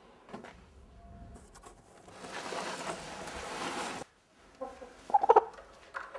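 A rooster clucking: a few short, loud calls about five seconds in and again near the end, after a stretch of rustling.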